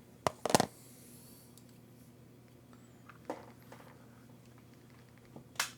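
A few sharp clicks and knocks of small plastic RC truck parts being handled and pulled apart, loudest about half a second in, with a smaller one a little after three seconds and another near the end. A faint steady hum underneath.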